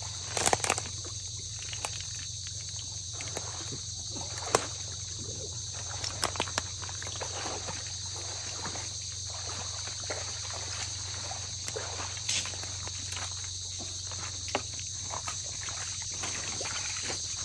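Steady high-pitched insect chorus, with soft sloshing, trickling and crackling as someone steps through shallow water and mud and gathers snails by hand. A few sharp clicks stand out, the loudest about half a second in and again about four seconds in.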